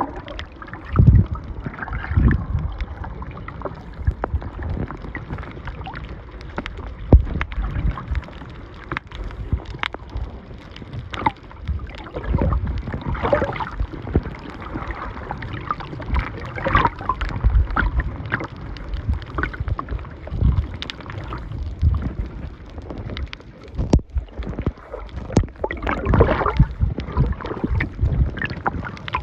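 Water sloshing and gurgling around a camera filming a coral reef underwater, in uneven swells with low thumps and scattered sharp clicks.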